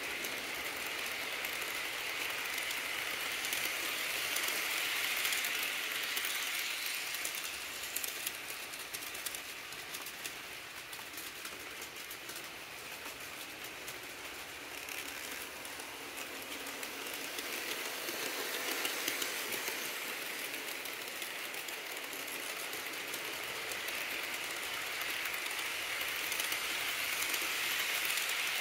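HO scale model trains rolling past on the track: a steady rattle with fast clicking of the wheels. It is louder near the start and end, as the passenger cars on the near track pass close by.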